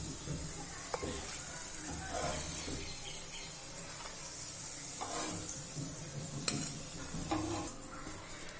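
Vegetable cutlets sizzling steadily in shallow oil on a tawa, browned and done, with a few light clicks of a spatula against the pan as they are lifted out.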